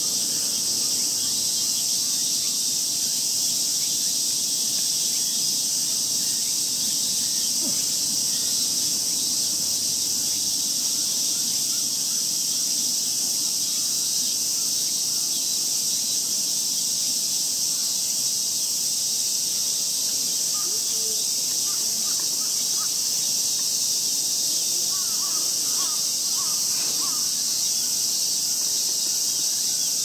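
Steady insect chorus: a continuous high-pitched drone that does not change, with faint scattered sounds beneath it late on.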